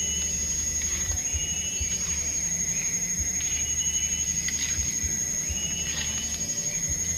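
Insects shrilling steadily on one high note, with short chirps repeating about once a second over it.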